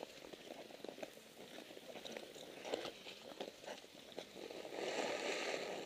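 Ice skate blades scraping and clicking on natural ice as skaters stroke along. A louder stretch of rasping hiss comes near the end.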